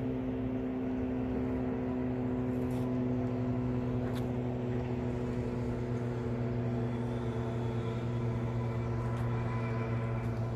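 A steady low mechanical hum with even overtones that does not change, with a couple of faint clicks.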